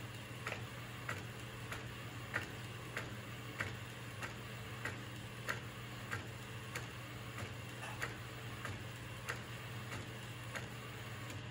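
Epson SC-P405 inkjet printer, converted for DTF film printing, running a print job: a sharp click repeats evenly about every two-thirds of a second as the print head works back and forth, over a steady low hum.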